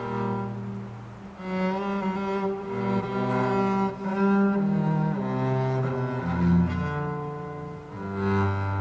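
Music of slow, held notes on low bowed strings such as cello, moving from note to note every second or so.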